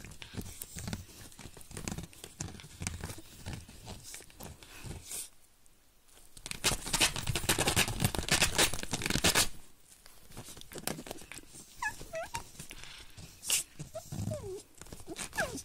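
Small puppy growling and mouthing at a hand held close to the microphone. A loud stretch of rustling comes in the middle, and a few short high whines come near the end.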